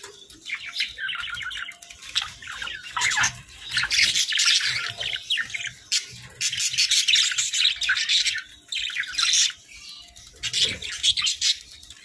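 Budgerigars chattering and chirping in quick, overlapping runs, broken by a few short pauses.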